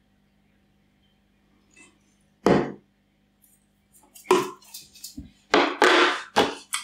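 Tabletop handling noises: a single sharp knock about two and a half seconds in, as a small plastic jar of substrate is set down inside an acrylic enclosure, then a cluster of clicks and clatters near the end as metal tweezers are laid on the table.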